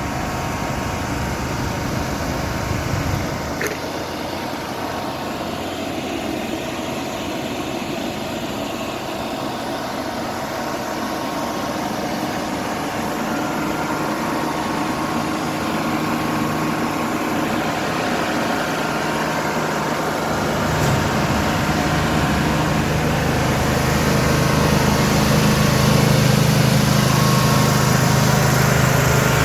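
An engine running steadily, its low hum growing louder and heavier from about twenty seconds in, with a single sharp click near the start.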